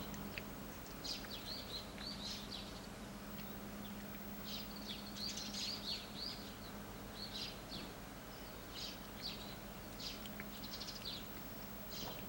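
Small birds chirping repeatedly in short, high clusters of notes, over a steady low hum.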